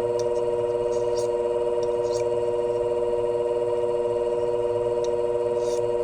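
Shear sharpening machine running with a steady hum from its spinning grit stone, with a few faint light scrapes as a shear blade is worked on it to remove a burr.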